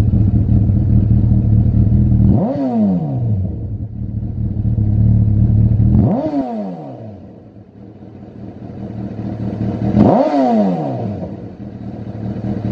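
Honda CB1000R's inline-four engine running through a Lextek AC1 aftermarket silencer. It idles with a low rumble and is blipped three times, about four seconds apart, the revs shooting up and falling back to idle each time. Another rev starts near the end.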